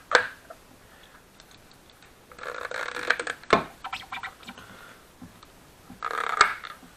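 Hard plastic clicking and rattling as a snowmobile fuel pump assembly is pushed down into the tabs of its plastic top. There are three bursts of handling noise, each with a sharp snap, near the start, about halfway through and near the end.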